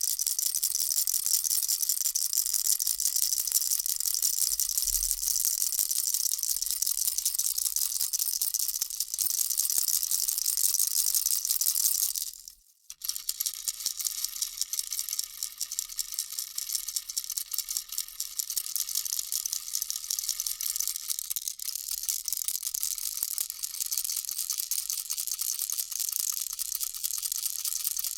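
Baby rattle shaken continuously: a dense, fine, high rattling of small beads, stopping briefly about twelve seconds in and then resuming.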